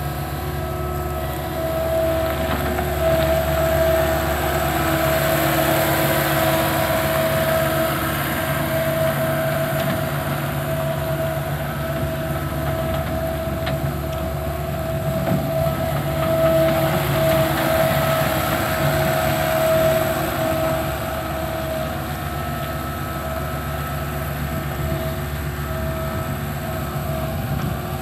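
2017 John Deere 324E skid steer loader's diesel engine running as the machine drives and turns on gravel, with a steady whine over the engine note.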